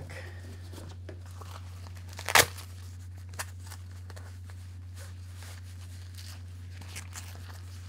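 Handling of a camera battery and its fabric pouch: one sharp, loud snap about two and a half seconds in, a small click a second later and a few faint clicks near the end, over a steady low hum.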